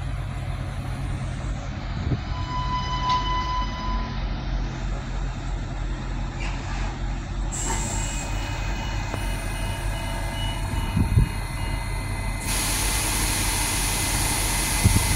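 Adelaide Metro 3000/3100-class diesel railcar standing at the platform with its engine running, a steady low drone. A short high beep sounds about two seconds in, and a loud steady hiss starts near the end.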